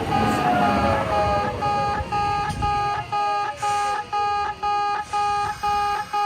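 Electronic warning bell of a Kintetsu station-yard level crossing ringing about twice a second, each stroke one steady multi-pitch tone. Over the first half a train runs past, its rumble fading and its whine falling in pitch.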